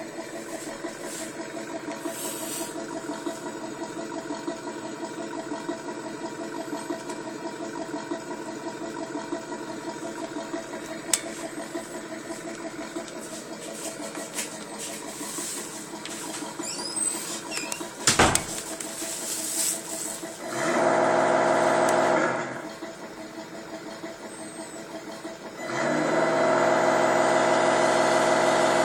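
Engine sound effect from a vehicle's sound-effects unit, played through a small speaker: a steady idle, then two loud held bursts, the first about a second and a half long and the second about three seconds.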